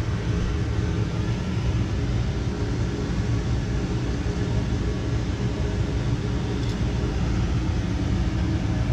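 Steady low hum of running machinery, with a single faint click about two-thirds of the way through.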